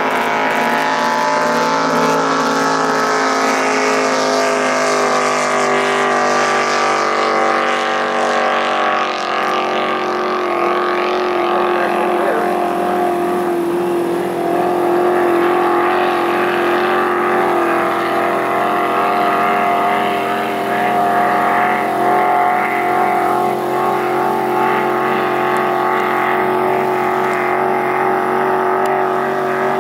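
Racing boat engine running at speed, a loud multi-toned drone. Its pitch sinks over the first ten seconds or so, then holds steady.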